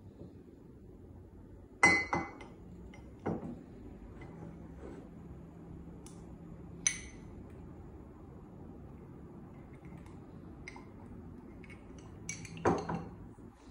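Glass bottle clinking as it is handled: a few sharp clinks with a brief high ring, two close together about two seconds in, single ones later, and a small cluster near the end.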